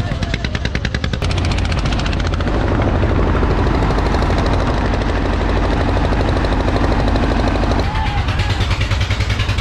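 Engine of a wooden river ferry boat running with a fast, even chugging beat, loud and low. The sound changes abruptly about a second in and again near the end.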